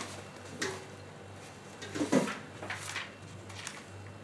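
A backpack and schoolbooks being handled: a few short rustles and soft knocks as a book is pulled out and a school diary is opened.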